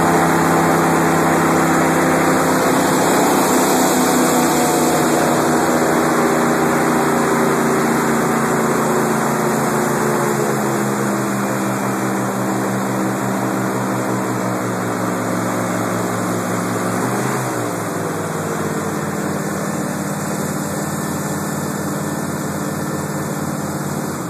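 Airboat engine and propeller running loud, the pitch slowly falling for most of the time. About two-thirds of the way through it wavers briefly, then holds steady at a lower pitch.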